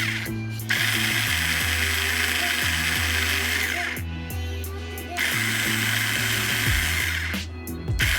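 Budget Tuoye cordless screwdriver running while driving a screw into wood. It runs for about three seconds, pauses, then runs again for about two seconds.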